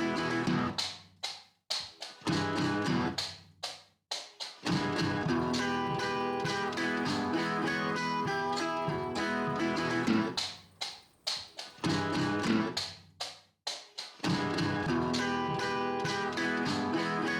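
Background music led by guitar, with a few short breaks in the track.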